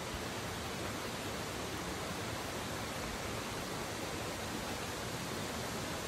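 Shallow, rocky river flowing over and around stones: a steady, even rush of water.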